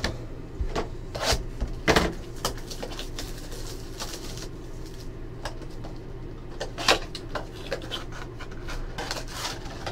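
Hands tearing open a cardboard Panini Prizm basketball blaster box: scattered rips, taps and rustles of cardboard, the sharpest about two seconds in and again near seven seconds, over a low steady hum.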